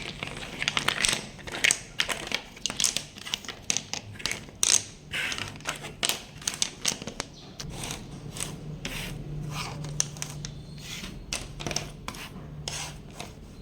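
Slime being worked by hand: an irregular run of sharp crackling clicks and pops, dense at first and thinning out after about seven seconds, over a faint steady low hum.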